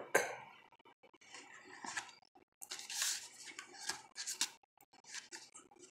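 Paper poster rustling and crinkling as it is handled and folded, in several short irregular scrapes with a few light clicks.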